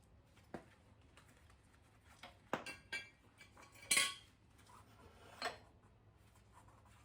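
Metal parts clinking and clattering as they are handled, with about six separate knocks and the loudest, ringing one about four seconds in.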